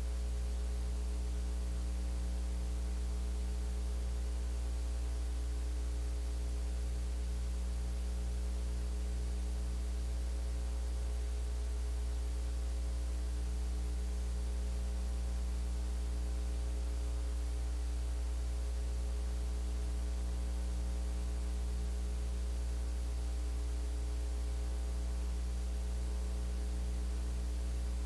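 Steady electrical mains hum with a buzzy stack of overtones and constant hiss, with a low throb pulsing about twice a second.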